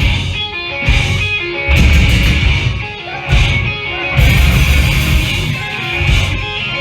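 Live emo/hardcore band playing loud, distorted electric guitars over bass and drums. Heavy full-band passages stop and start, with ringing single guitar notes in between.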